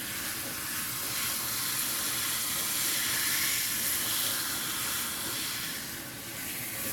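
Pull-down kitchen faucet sprayer running in spray mode, a steady hiss of water spraying onto a cat's wet fur and into the sink. It grows a little louder about a second in and eases off slightly near the end.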